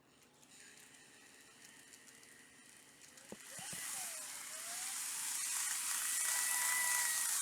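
Model E5-series Shinkansen train running on track, its wheel noise and steady motor whine growing much louder from about three seconds in as it comes close.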